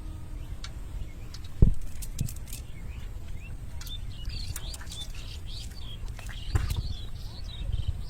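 Small birds chirping repeatedly in quick short notes, over a steady low rumble, with one sharp thump about one and a half seconds in.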